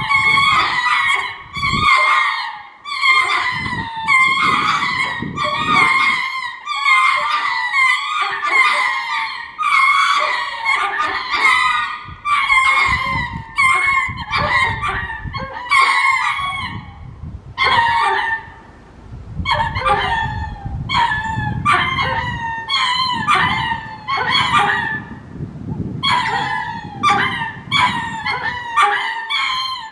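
Ring-tailed lemur courtship calls: a long run of short, high, nasal calls repeated about twice a second, broken by a couple of brief pauses.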